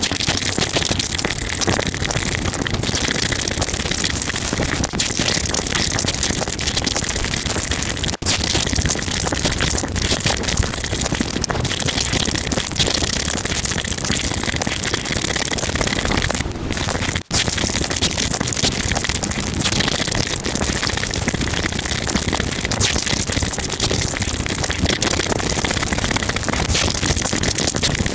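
Close-miked slurping and chewing of saucy noodles: a dense, steady noise that breaks off briefly twice.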